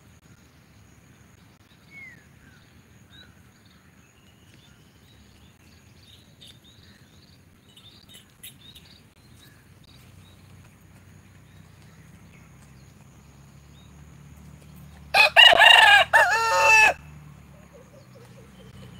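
A rooster crows once, a loud cock-a-doodle-doo lasting just under two seconds, about fifteen seconds in.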